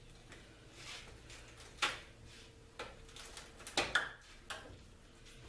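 Sharp knocks and clacks of wooden framing studs being handled: one about two seconds in, then a loud pair close together about two seconds later, with a few lighter taps and a faint steady hum.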